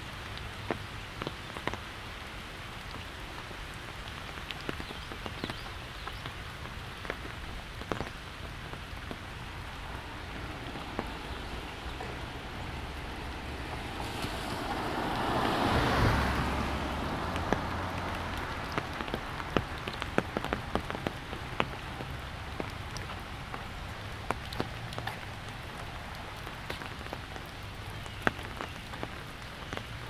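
Rain falling on an umbrella, with many scattered sharp taps of single drops. About halfway through, a broad whoosh swells up over a couple of seconds and fades away again.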